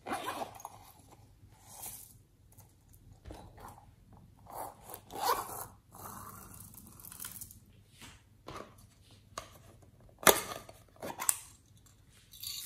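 Plastic packaging and containers being handled: irregular rustling and crinkling, with two sharp clicks near the end.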